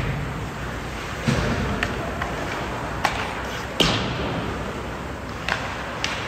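Ice hockey play on a rink: sharp clacks and thuds of sticks striking the puck and the puck or players hitting the boards, about five knocks over a steady arena din, the loudest a little under four seconds in.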